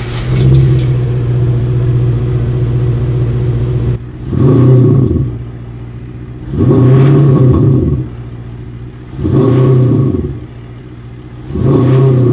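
Mercedes-Benz X-Class pickup engine firing up and settling into a steady idle, then revved four times. Each blip rises and falls in pitch over about a second.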